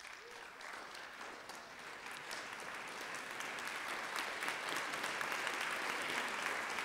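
Audience applauding, the clapping building steadily louder.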